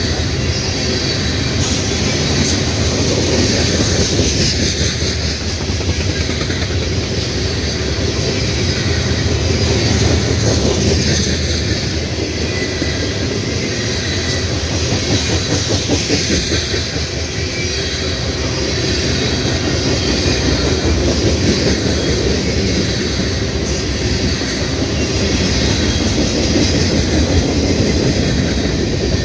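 Freight train cars rolling past close by: a steady, loud rumble and clatter of steel wheels on the rails that keeps on without a break.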